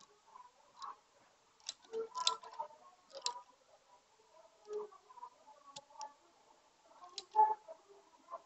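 Irregular small clicks and taps of metal tools against an LED torch's plastic body and circuit board while its faulty push switch is being desoldered. The loudest click comes near the end.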